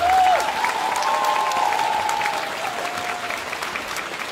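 Audience applauding: dense clapping, with a drawn-out high-pitched tone over it for the first two and a half seconds, then a shorter one.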